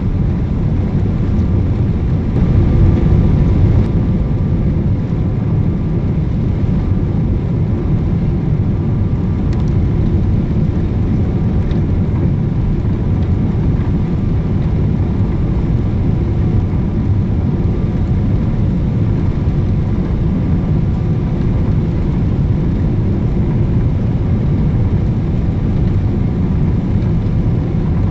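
Steady low rumble of engine and airflow noise inside the cabin of a Boeing 777-300ER on final approach, with its GE90-115B engines running; it swells slightly a couple of seconds in.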